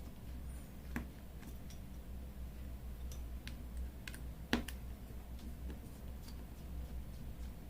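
Light, scattered clicks and taps of a small screwdriver and tools on a Vivo Y11 smartphone's plastic midframe as its screws are taken out. Two sharper clicks stand out, about a second in and about four and a half seconds in.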